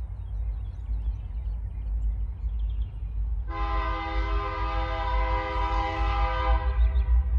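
Diesel locomotive air horn, ex-Norfolk Southern SD60M, not yet in sight: it sounds one long blast, a chord of several notes, starting about halfway through and fading near the end. A steady low rumble runs underneath.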